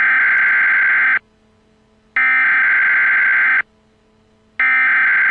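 Emergency Alert System SAME header: three bursts of rapid two-tone digital data, each about a second and a half long and about a second apart, with a faint low hum in the gaps.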